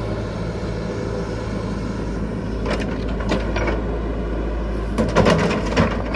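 Caterpillar 312 excavator's diesel engine running steadily, with a few clanks and scrapes of the working machine about three seconds in and again near the end.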